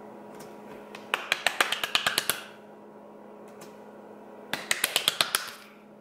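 Two quick runs of sharp taps, about eight a second, the first lasting just over a second and the second about a second, over a steady low room hum.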